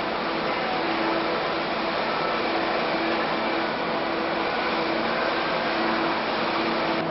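Steady rushing noise and low hum of a Tokyu Toyoko Line electric train, even throughout.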